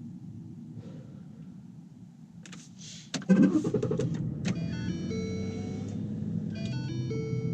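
Low steady rumble of a car. About three seconds in a sharp jolt cuts in and music starts playing louder over it.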